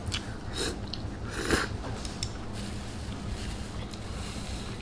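A person eating noodles and a flatbread wrap: a few short, noisy eating sounds in the first two seconds, the loudest about a second and a half in, over a steady low room hum.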